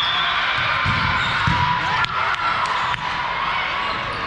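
Spectators' chatter echoing in a gymnasium during a volleyball match, with a couple of dull thumps on the court about one and one and a half seconds in, and a sharp click near the middle.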